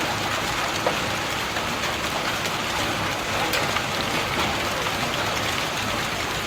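Heavy rain pouring steadily, with a few sharper ticks scattered through it.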